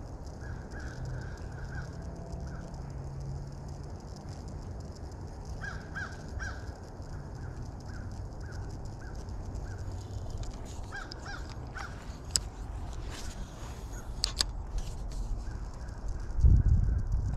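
Crows cawing in runs of short, evenly spaced calls over a low steady outdoor background. A few sharp clicks follow in the second half, and a heavy low thump comes near the end.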